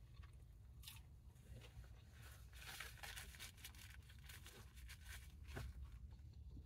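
Faint rustling and crinkling of fast-food paper packaging being handled, thickest about two to three and a half seconds in, with a few short scratchy clicks.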